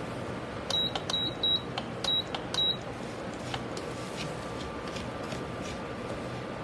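Induction cooktop beeping five times, short high beeps about half a second apart, as its control button is pressed repeatedly to turn the heat down. A spoon taps faintly in the steel pan.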